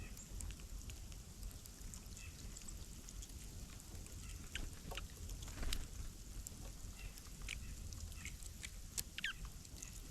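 Small wild birds chirping sporadically: short, high calls scattered through, with a few sharp clicks among them, the loudest about halfway through, over a steady low background rumble.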